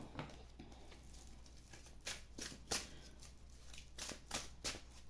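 Tarot cards being handled: a run of short, faint rustles and flicks that begins about two seconds in, over a low steady hum.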